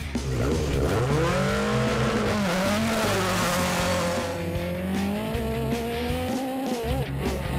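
Engine of a Reynard single-seater racing car accelerating hard off the start line, its pitch climbing and dropping back briefly at each gear change.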